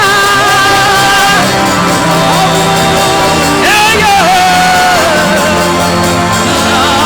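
Music with a voice singing long, wavering held notes over a steady bass line.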